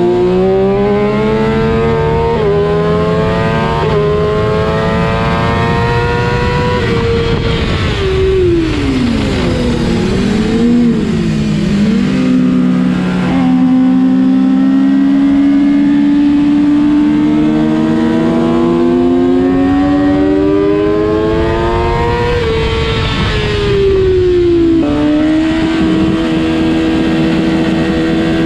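Kawasaki ZX-6R inline-four sport bike engine running hard through the gears. Early on there are quick upshifts, then the revs fall with short downshift blips as it brakes for a corner. It makes a long pull back up the rev range, drops again with a downshift near the end, and then pulls once more.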